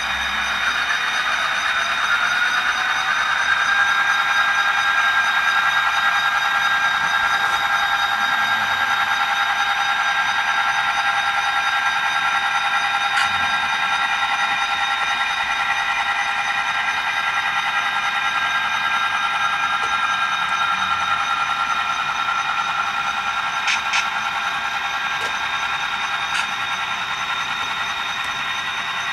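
Model diesel locomotive's sound decoder playing a diesel engine through its small speaker: the engine revs up over the first few seconds, then runs steadily. A few faint clicks come around the middle and near the end.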